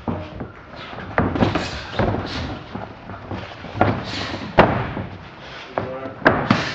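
Kicks and gloved punches landing in a kickboxing bout: a string of sharp slaps and thuds at irregular intervals, the loudest about four and a half seconds in.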